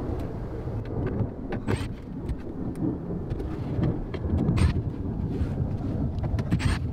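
Low rumbling noise with scattered short, sharp clicks as hands work plastic brackets and a wire harness loose from a boat's carpeted sidewall.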